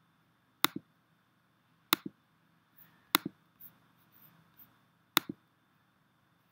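Four sharp computer mouse clicks, each a quick press-and-release pair, spaced a second or two apart, over a faint steady hum.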